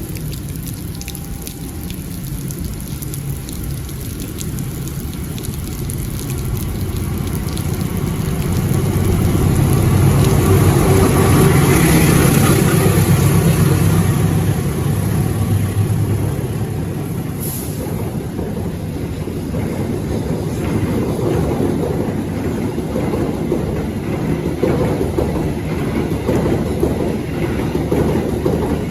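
A train running past in the rain: a low steady engine hum and rumble that grows to its loudest about 10 to 14 seconds in, then eases and carries on, with rain hiss underneath.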